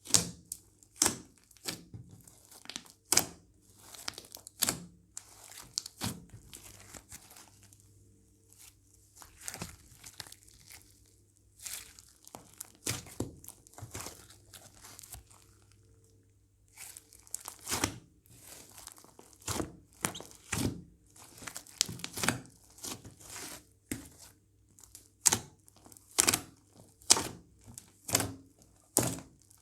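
Homemade slime being squeezed and pressed by hand, giving irregular sticky pops and crackles, one to three a second, with a quieter stretch about halfway through.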